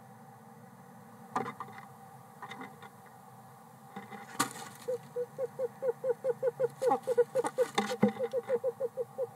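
Male eastern screech-owl giving his trill: a rapid, even series of short low notes, about six or seven a second, starting about five seconds in. A few sharp knocks on the wooden nest box come before and during it.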